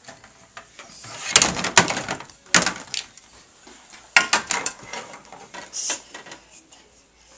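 Plastic toy kitchen being handled: the oven door and pull-out rack knocking shut and toy bakeware clattering against it, in two spells of clicks and knocks about a second apart.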